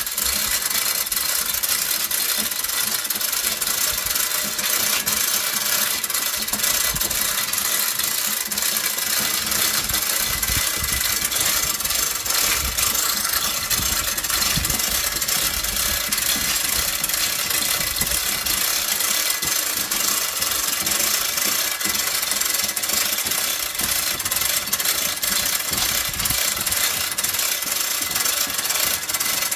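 An engine running steadily, with the rattle of a chain hoist's hand chain being hauled to lower a generator set.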